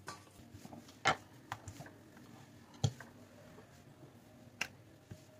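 Parotta dough being handled and spread thin by hand on an oiled stone surface: faint rubbing with a handful of light taps and clicks, the sharpest about a second in, just before three seconds and near the end.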